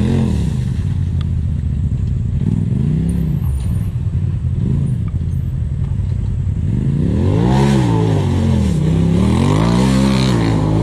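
Polaris RZR side-by-side engine revving in repeated throttle blips as it crawls over slick rock, the pitch rising and falling each time. The blips come louder and closer together in the second half.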